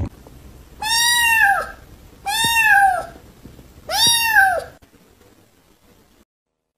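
White kitten meowing three times, about a second apart. Each meow is high and rises then falls in pitch.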